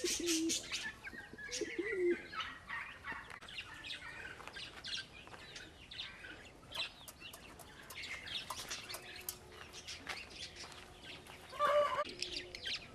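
Mixed calls from a flock of fancy pigeons and chickens: short, sharp chirps and clucks throughout, with a louder call near the end.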